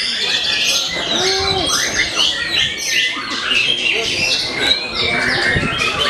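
Dense, overlapping song of caged white-rumped shamas (murai batu) competing at once: rapid high whistles, trills and chirps running without a break.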